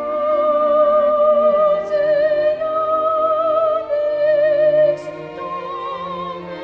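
Operatic-style music: long held notes with a wavering vibrato over a lower accompaniment, the melody changing pitch every second or two.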